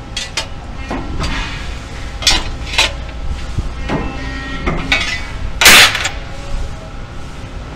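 Sheet-metal parts clinking and clanking against the steel tooling of a Cincinnati press brake and against each other as they are handled, over a steady low machine hum. There are several short metal knocks, and the loudest clatter comes about two-thirds of the way through.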